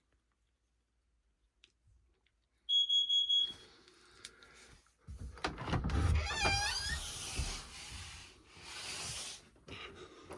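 A household smoke alarm gives one high, steady beep about a second long. A few seconds later comes rustling handling noise with a short wavering squeak.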